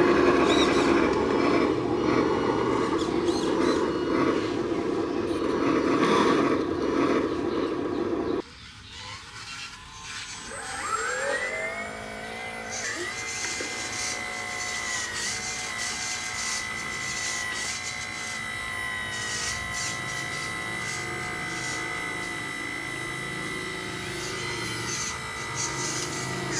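Homemade RC truck's electric drive motor and gears running with a rough, noisy drone; after an abrupt cut about eight seconds in, the motor winds up in a rising whine and then holds a steady high-pitched whine.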